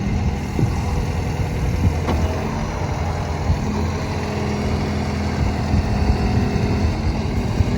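Terex TLB840R backhoe loader's diesel engine running steadily while the backhoe hydraulics work the extendable dipper, with a stronger engine tone through the middle.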